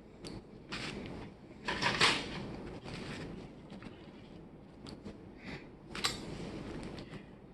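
Small handling noises: light clicks and rustles, with a brief louder rustle about two seconds in and a sharp click about six seconds in.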